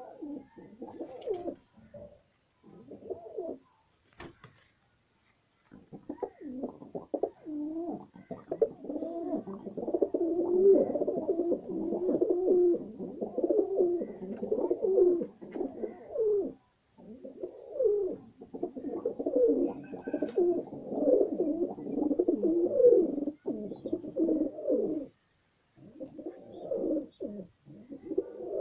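Several domestic pigeons cooing, a few short separate coos at first, then many low coos overlapping almost without a break. A single sharp click sounds about four seconds in.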